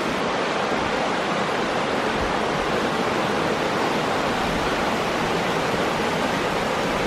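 Waterfall rushing loudly and steadily, running high: the most water the hikers have ever seen flowing over it, far more than its usual trickle.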